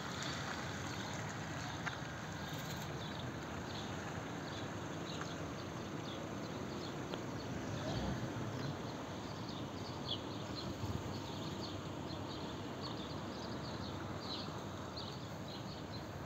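Steady outdoor background noise with many short, high chirps of small birds from about four seconds in, and a brief low rumble near the middle.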